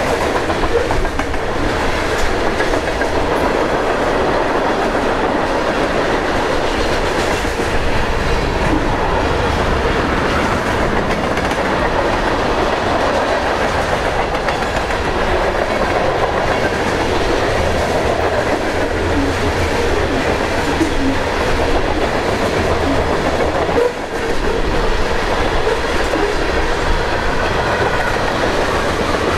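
Freight cars of a long train, covered hoppers and tank cars, rolling steadily past close by: a continuous noise of steel wheels running on the rails, with a brief drop about 24 seconds in.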